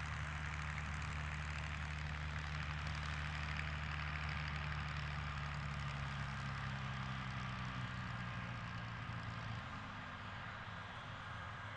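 A steady low engine hum, idling, over a constant hiss. The hum drops away about ten seconds in.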